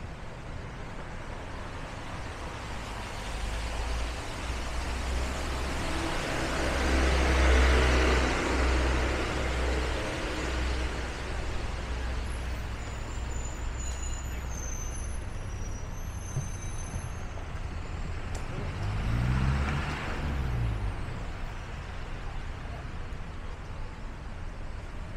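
Road traffic on a wet city street over a steady hiss. A vehicle passes about six to ten seconds in, its deep engine rumble and tyre noise swelling and fading. A second vehicle passes around twenty seconds in, its engine note gliding in pitch as it goes by.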